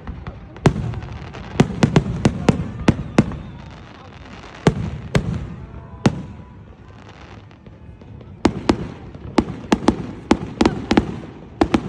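Fireworks display: aerial shells bursting in a run of sharp bangs that come in clusters. There is a quieter lull around the middle, then a quick series of bangs near the end.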